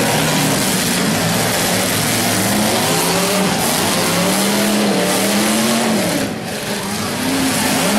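Demolition derby car engines revving hard, their pitch rising and falling again and again over a harsh rumble, with a short dip in loudness about six seconds in.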